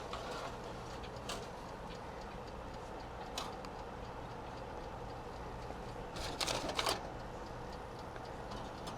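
A few light clicks and knocks, then a short cluster of metallic rattling about six to seven seconds in, from reaching into a preheating oven to work loose a leftover item stuck inside, over a faint steady hum.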